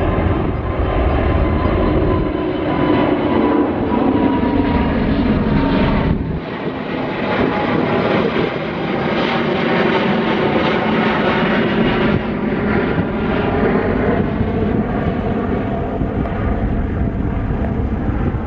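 Airbus A350-900's Rolls-Royce Trent XWB engines at climb power as the jet passes overhead after takeoff: a loud, steady jet roar with a faint fan whine at first. The deep rumble drops away about six seconds in as the aircraft heads off.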